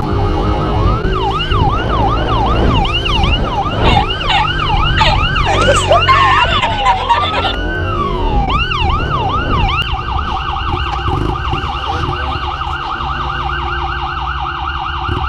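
Police car sirens yelping in quick rising and falling sweeps, with more than one siren overlapping for the first several seconds. From about ten seconds in, a single faster, even yelp remains. A dirt bike engine runs underneath.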